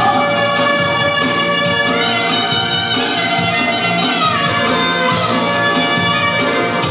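Albanian folk dance music played live: a clarinet plays a sliding, ornamented melody over keyboard accompaniment with a steady beat.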